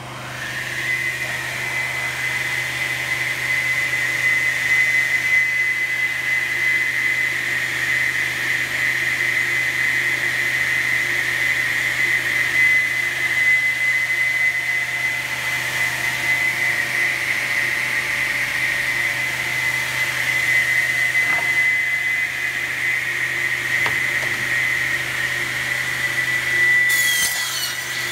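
OMGA TR 2 B double mitre saw's blade motors starting up and then running free without cutting, a steady machine run with a high whine. A brief higher sliding sound comes near the end.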